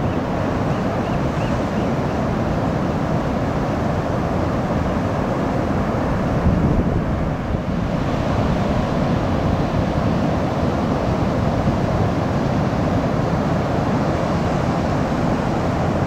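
Ocean surf: a steady rush of big waves breaking, with wind rumbling on the microphone.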